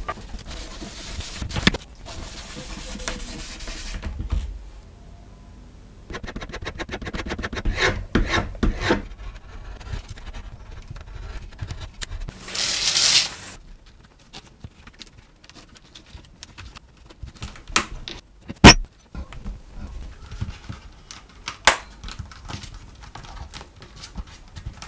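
Close-up leatherwork handling sounds: leather rubbed and scraped against a wooden bench while dye is worked in, and small rustling and scraping. Past the middle come a few sharp single clicks, the loudest about two-thirds of the way through.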